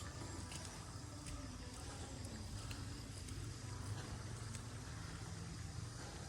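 Steady low rumble of outdoor background noise, with a few faint scattered ticks.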